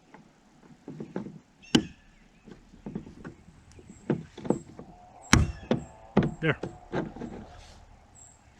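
Plastic halves of a kayak rudder steering knob clicking and knocking together as the top half is pressed and clipped onto the bottom half, with a sharp click about five seconds in.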